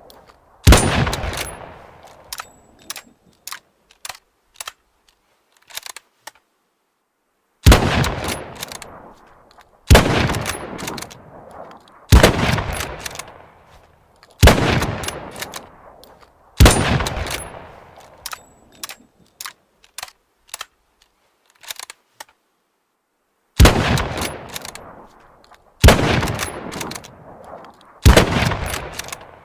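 Mosin-Nagant bolt-action rifle (7.62×54mmR) firing nine shots, mostly about two seconds apart in runs of three or four, each shot trailing off in a long echo. Short sharp clicks sound between some of the shots.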